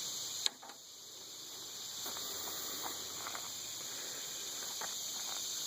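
A steady, high-pitched chorus of insects such as crickets, with a sharp click about half a second in and a few faint short chirps later on.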